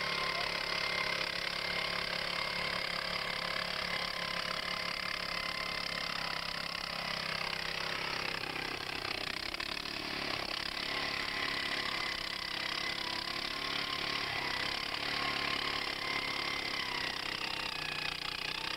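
Small gasoline engine of a two-man Maki earth auger running steadily under load as the bit bores into the ground. Its pitch sags briefly about halfway through, then recovers.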